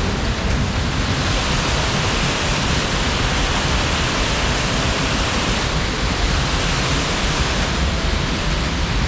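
Waterfall rushing steadily as white water cascades down a rocky chute, a loud, even wash of falling water.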